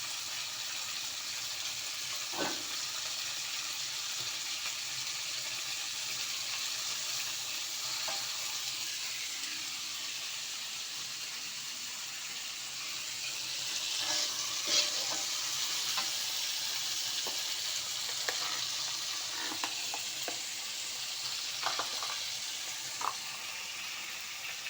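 Food frying in hot oil in a pan, a steady sizzle, with sharp knocks of a spatula against the pan now and then, mostly in the second half.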